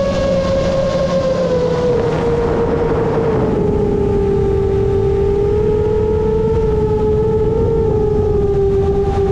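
A 7-inch FPV quadcopter's Emax Eco II motors and three-blade props whining, the pitch sliding down about two seconds in as the motors slow, then holding steady with small wavers. A brief rush of air noise comes in around two to three seconds.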